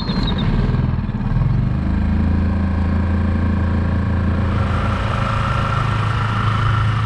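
Small outboard motor on a micro skiff running steadily, louder from about half a second in and then holding, with a steady higher whine joining past the middle. A short electronic beep sounds right at the start.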